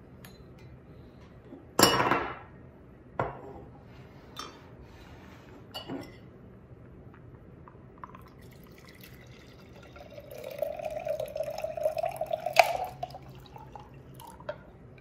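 A few sharp glassy knocks as a glass pitcher and jar are handled, the loudest about two seconds in. Then, from about ten seconds in, a seltzer, juice and ice drink pours from a glass pitcher into a glass mason jar for about three seconds, with an ice cube clinking against the glass near the end.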